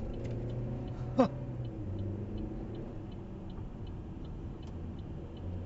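Car cabin rumble of engine and tyres as the car picks up highway speed, with a light regular ticking at about two to three ticks a second, like a turn-signal indicator. About a second in there is one brief, loud sound that drops quickly from high to low pitch, like a whistle.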